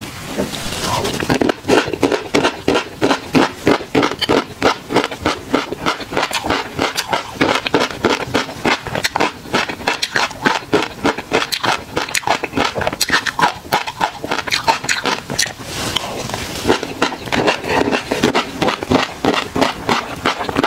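Close-miked chewing of a mouthful of tobiko fish roe, the tiny eggs popping in quick, crisp clicks, several a second, with wet mouth sounds.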